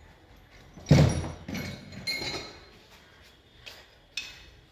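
A heavy metallic clunk about a second in, then a lighter knock and a few short clicks, from work on the opened gearbox of a Mahindra Yuvo 585 tractor as its gear shift levers and parts are handled.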